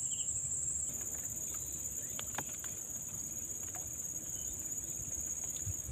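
Insects trilling steadily at a high pitch, with a second, higher trill joining about a second in. There are a few faint clicks.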